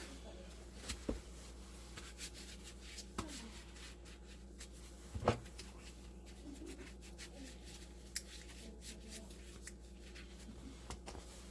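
Light handling noises of hands working with parts and tools: scattered small clicks and knocks with some rubbing, one sharper knock about five seconds in, over a steady low hum.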